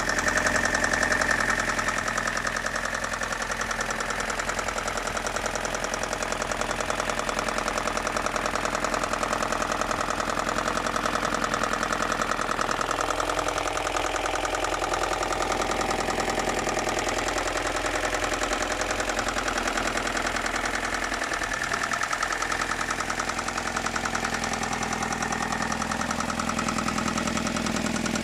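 BMW M42 four-cylinder engine idling steadily with a rapid, regular knocking running over the idle: a knock the owner cannot identify.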